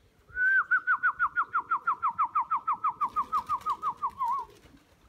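A trilled human whistle: one high warbling note that wavers rapidly, about seven times a second, sinking slightly in pitch over about four seconds, then stops.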